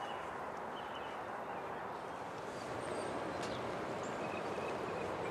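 Steady outdoor background noise with a few faint, short bird chirps. The background grows slightly louder about three seconds in.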